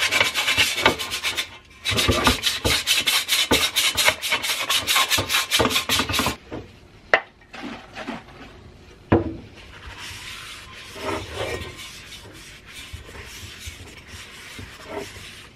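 Steel helmet shell scrubbed hard by hand in fast back-and-forth strokes, about six a second, in two long runs. Then a couple of knocks as the helmet is set on the wooden bench, and softer wiping of the inside of the shell with a cloth.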